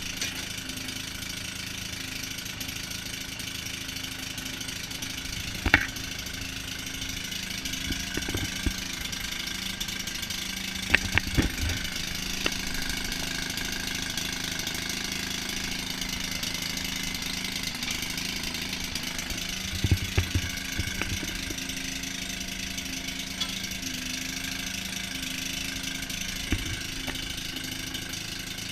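Circa-1940 Maytag 72 two-stroke gas engine on a Maytag washing machine running steadily at idle, with a few sharp clanks about 6, 11 and 20 seconds in.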